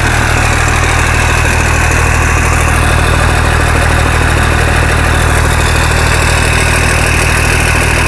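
Military 5-ton truck's diesel engine idling steadily.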